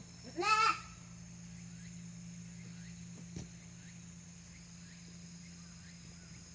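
A male goat bleats once, briefly, about half a second in, its call rising and then falling in pitch. After it, a steady low hum and faint high steady tones, with one sharp click a little past the middle.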